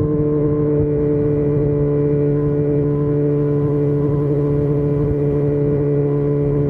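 Yamaha FZ6 Fazer 600's inline-four engine running at a steady cruising speed, its pitch holding level, with wind rumble over the microphone.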